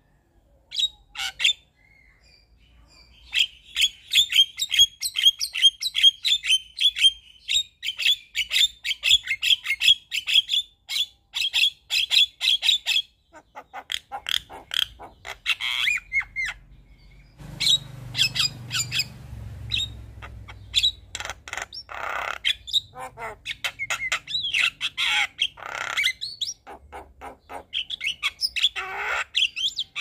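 Javan myna singing: a long, fast run of even chattering notes, then varied squawks, whistles and chatter. A brief low rumble sounds about halfway through.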